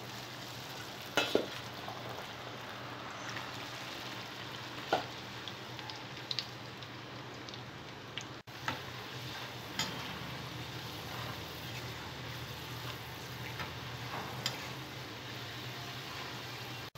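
Cornflour-coated boiled corn kernels deep frying in hot oil, a steady sizzle throughout, with a few short knocks as the kernels are dropped in and stirred.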